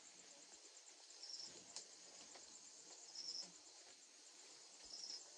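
Faint, steady trilling of crickets, with a short higher chirp about every two seconds.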